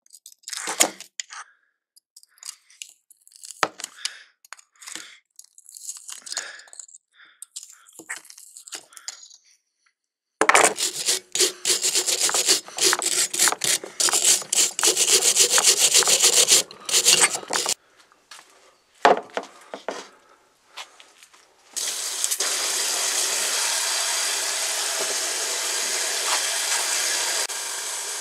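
Pliers working a screw out of a rusty antique flat iron's wooden handle, with scattered clicks and scrapes. Then about ten seconds in comes seven seconds of hard, fast scrubbing with a hand wire brush on the iron's rusty metal. Near the end a steady hiss starts: a hose spray nozzle jetting water into a plastic tub.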